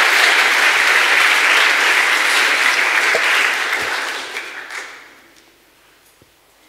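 Audience applauding, the clapping dying away between about four and five seconds in.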